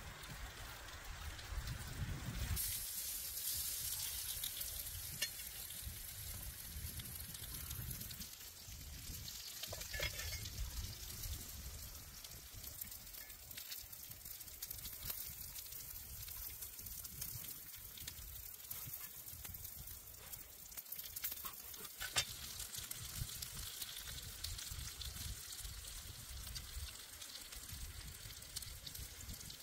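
Meat sizzling on a hot stone slab over a wood fire, the steady hiss setting in about two seconds in, with a few sharp knocks along the way.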